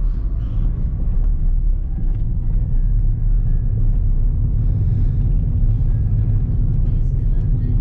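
Steady low rumble of road and engine noise inside a moving Ford New Fiesta's cabin, with music from the car stereo faintly underneath.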